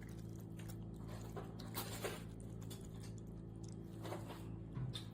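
A cat lapping water from a pet water fountain: irregular soft wet clicks over a steady low hum.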